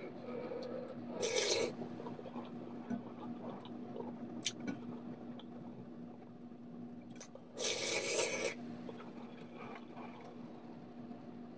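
A person slurping ramen broth straight from the rim of a stainless steel pan: two loud slurps, one about a second in and one about eight seconds in, with small wet mouth and swallowing sounds between.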